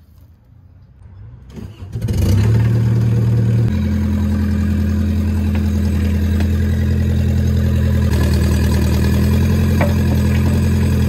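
Kubota KX121-3 mini excavator's diesel engine cranking and starting about two seconds in, then running steadily; its pitch settles a little lower shortly after it catches.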